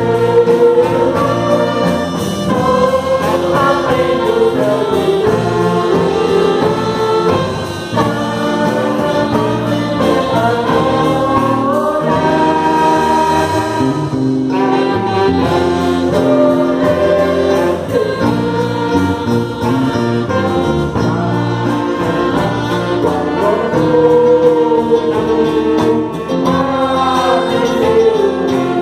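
Church orchestra with brass playing a gospel hymn while a choir sings.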